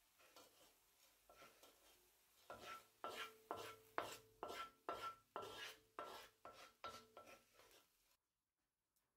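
Wooden spoon scraping browned ground meat across a black frying pan, a run of short scrapes about two a second with a faint ring from the pan. It stops abruptly near the end.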